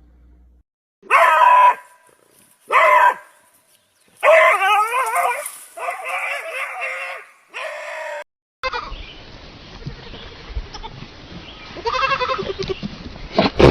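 An animal calling loudly, five wavering cries in quick succession, followed by a noisier stretch with fainter calls near the end.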